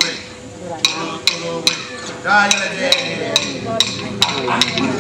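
Clapsticks struck in a steady beat, a little over two strikes a second, starting just under a second in, accompanying men singing a traditional Gamilaraay ceremonial song. The voices come back in about halfway through, over a steady held note.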